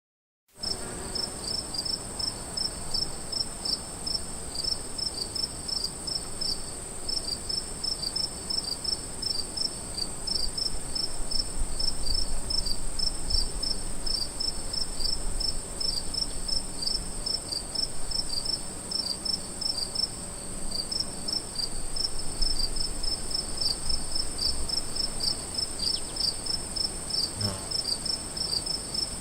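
Crickets chirping: a steady, high, unbroken trill with a chorus of rapid, regular chirps just beneath it, beginning about half a second in.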